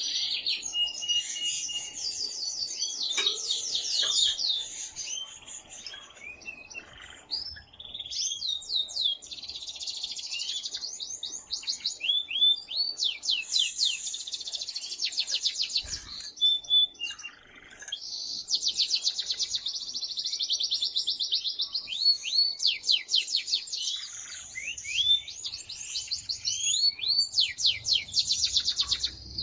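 Excited male canary singing loud, long phrases of rapid trills and rolls. The song breaks off briefly about a fifth of the way in and again just past the middle.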